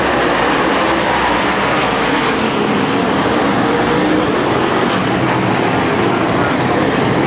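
A pack of dirt late model race cars running hard around the track, their V8 engines blending into one loud, steady drone.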